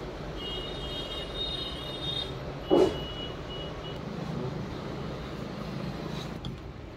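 Steady low background rumble of a workshop, with a faint high thin tone in the first three seconds and one short loud sound about three seconds in.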